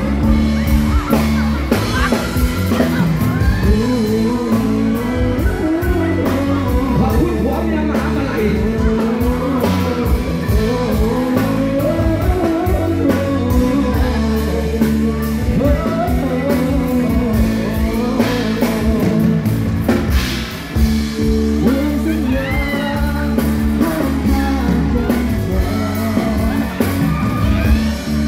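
Live band music with a male voice singing a melody over steady bass and a regular drum beat.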